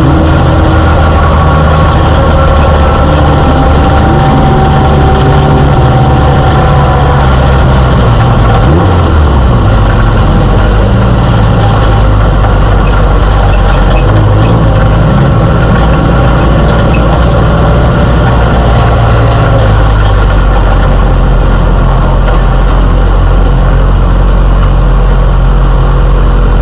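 Mini stock race car's four-cylinder engine heard loud from inside the cockpit, running at low revs with road and wind noise, the pitch dipping briefly about nine seconds in.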